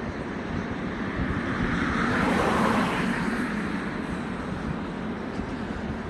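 Road traffic with a vehicle passing close by, swelling to its loudest about two and a half seconds in and then fading back to a steady traffic hum.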